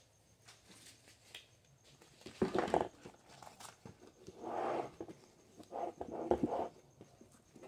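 Nylon plate carrier pieces being handled and slid across a tabletop: three short bursts of fabric rustling and scuffing, with a few light taps.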